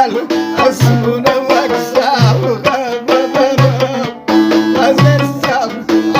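Folk song music: a melodic instrument line over a steady hand-drum beat, with a low stroke recurring about every second and a half.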